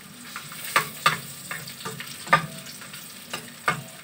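Garlic and onion sizzling as they sauté in a frying pan on a gas burner, with a spatula scraping and knocking against the pan several times as they are stirred.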